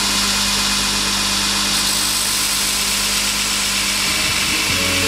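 Belt grinder running steadily with a low motor hum and a loud hiss as a steel chisel blank is held against the belt to grind its bevel.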